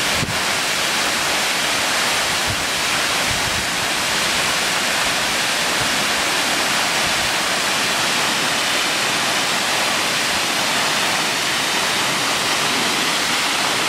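Tall waterfall spilling down a rock cliff into a pool: a steady, even rush of falling water.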